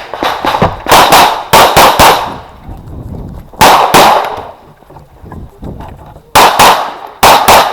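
9mm CZ Shadow 2 pistol firing rapidly during a practical shooting stage, mostly in quick pairs of shots with short pauses between groups.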